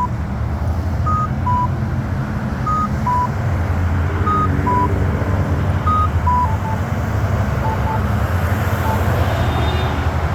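Campbell accessible pedestrian signal push button sounding short electronic beeps, a higher note followed by a lower one, repeating about every second and a half; from about six seconds in the pattern changes to shorter, lower single beeps. Steady road traffic rumbles underneath.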